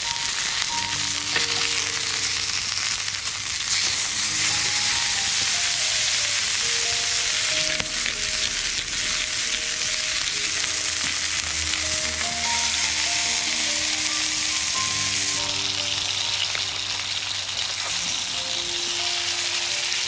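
Meat frying in a skillet over a campfire: a steady, even sizzle of hot fat. Soft background music with slow, held notes plays underneath.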